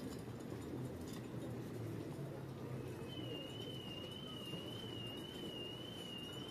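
Low background noise of a street crowd watching a procession, with a single thin, high tone that wavers slowly in pitch, starting about halfway through.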